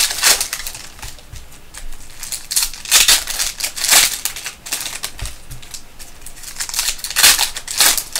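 Foil trading-card pack wrapper being crinkled and torn open by hand, in several crackly bursts, the loudest about three and four seconds in and again near the end.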